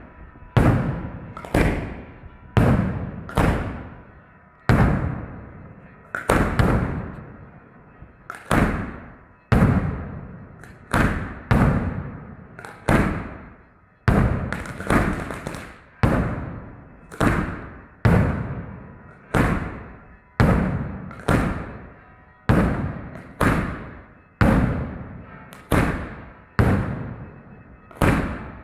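Daytime aerial salute fireworks going off in a long rapid string. Each is a sharp bang, about one a second, and each trails off before the next.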